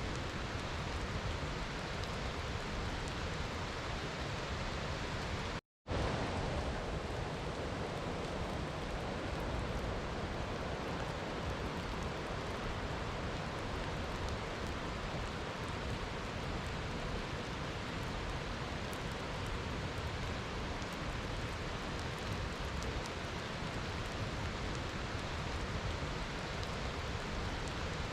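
Steady, even rainfall in a rainforest, a dense hiss with no single drops standing out. About six seconds in, the sound cuts out completely for a split second and then resumes.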